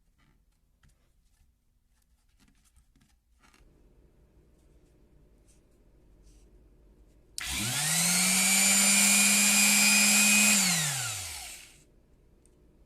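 Makita BO4550 orbital finishing sander switched on, quickly coming up to a steady high hum. It runs for about three seconds, then is switched off and winds down in a falling tone. A few faint handling clicks come before it starts.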